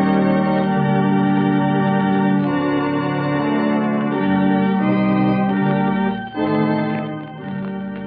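Organ playing the radio drama's closing theme music in sustained chords that change every second or so, with a brief dip a little after six seconds.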